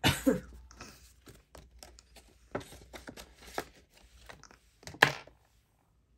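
Paper cash and envelopes being handled and shuffled, with light rustles, taps and clicks, and one sharp knock about five seconds in.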